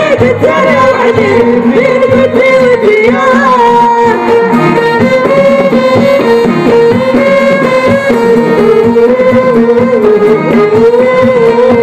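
Live amplified Moroccan folk music: a woman singing a wavering, ornamented melody over a band with steady hand percussion and drums.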